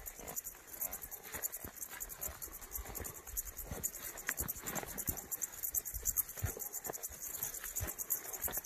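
Meadow insects, crickets or grasshoppers, chirping in a fast, even, high-pitched train of pulses, with soft rustling and footsteps as the walker moves through tall dry grass.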